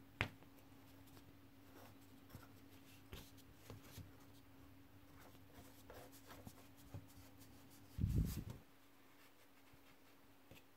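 Small metallic clicks and faint scraping as fingers turn and work parts on the threaded axle of a Sachs Torpedo Jet coaster-brake hub, with a sharp click just after the start and a dull low bump about eight seconds in.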